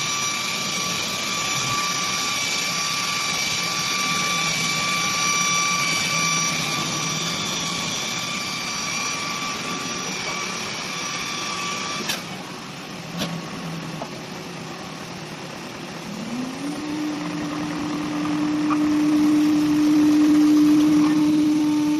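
CNC nesting router machinery running with a steady high whine, which cuts off with a click about halfway through. After a few knocks, a motor spins up, its hum rising in pitch and then holding a steady tone that grows louder.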